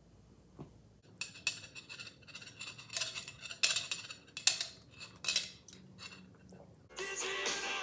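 Sipping and slurping through a long metal straw from an aluminium drink can, with a run of sharp clicks and clinks as the straw knocks against the can. Music starts near the end.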